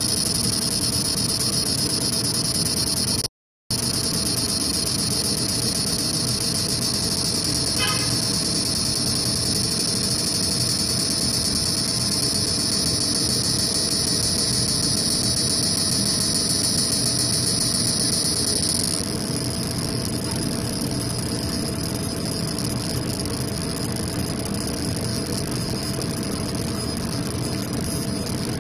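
Laser engraving machine running as it burns a design into cork: a steady machine hum with a constant tone and a high whine. The whine stops abruptly about 19 seconds in, leaving the lower hum. The sound drops out to silence for a moment about three seconds in.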